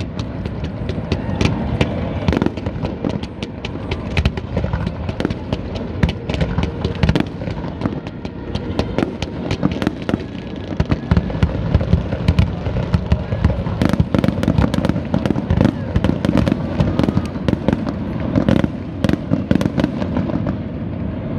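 Fireworks display: a dense, continuous barrage of sharp bangs and crackling shell bursts, many each second, over a steady low rumble.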